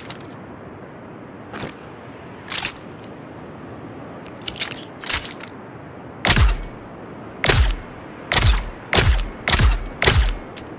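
Dart gun firing, shot after shot over a steady hiss: a few lighter shots at first, then six louder ones with a deep thump, about half a second to a second apart, in the second half.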